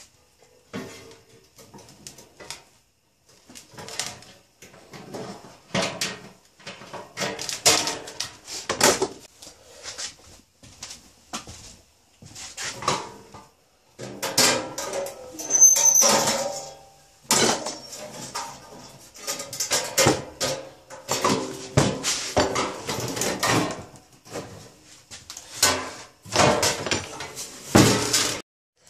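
Irregular metal clanks, scrapes and rustling from a homemade sheet-metal tent stove being handled, with a brief squeak about halfway through.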